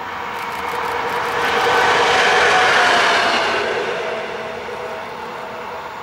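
Freight train passing: wheels rolling on the rails, the noise swelling to a peak about halfway through and then easing off, with a few steady whining tones over it.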